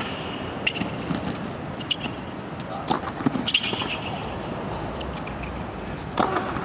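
Tennis ball struck back and forth in a rally on a hard court: sharp racket hits about a second apart over the steady hum of the crowd.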